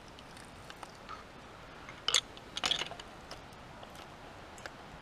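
A few short metallic clicks and scrapes, the loudest about two seconds and two and a half seconds in, as a screwdriver pries the rear main seal backing plate off a Toyota 20R engine block.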